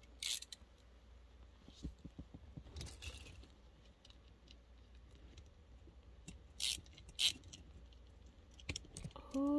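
Scattered sharp clicks and small scrapes of hand tools working against a plastic toy to get its screws out, a few clicks louder than the rest. A short hum of voice near the end.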